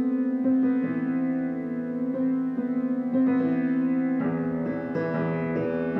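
Instrumental music led by a piano-like keyboard, with no singing. The accompaniment grows fuller, with lower notes added, about four seconds in.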